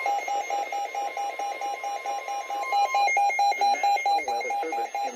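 Weather alert radio's alarm beeping rapidly, about four to five beeps a second, signalling a severe thunderstorm warning. For the first three seconds a steady high warning tone sounds beneath it, the NOAA Weather Radio 1050 Hz alert tone. A voice reading the warning starts under the beeps about three and a half seconds in.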